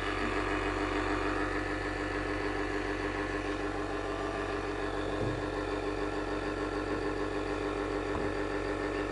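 Steady mechanical hum of a running motor, even and unchanging, with one constant tone.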